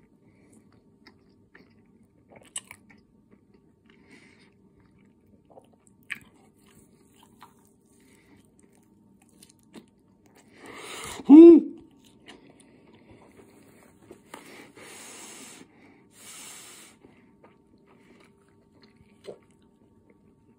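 A person eating taquitos: faint wet mouth clicks and chewing, then about eleven seconds in a short, loud wheezing vocal sound that slides in pitch, followed a few seconds later by two breathy blows of air.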